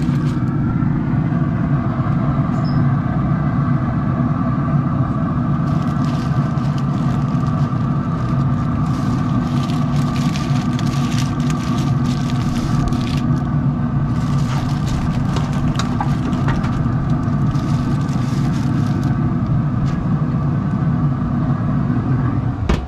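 A steady machine hum with several held tones throughout. Over it, parchment-paper packets crinkle as they are lifted and set on a metal grill grate, in two stretches mid-way.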